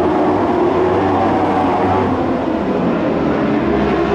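A pack of dwarf race cars running together around the track: a loud, steady engine drone made of several overlapping engine pitches.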